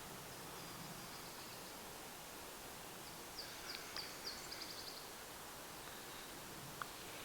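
A small songbird singing a short song of a few quick high notes that drop in pitch, ending in a fast trill, about three and a half seconds in, over a faint steady hiss of outdoor background.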